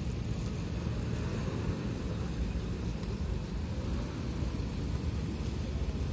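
GAZ-M20 Pobeda's side-valve four-cylinder engine running as the car drives slowly past, a low steady rumble.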